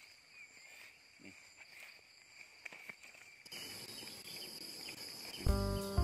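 Steady high drone of insects with a few faint clicks; background music comes in about five and a half seconds in.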